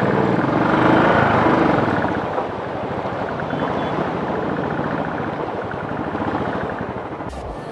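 Motorcycle engine running at low speed with a steady, rapid pulsing, heard close up from the bike and mixed with noise from riding over rough rocky ground.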